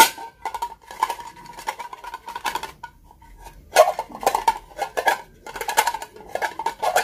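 A glass bowl capped with an openwork metal basket is shaken hard to mix the folded slips for a prize draw. Glass and metal clink and rattle together over a ringing note, with a short pause about three seconds in.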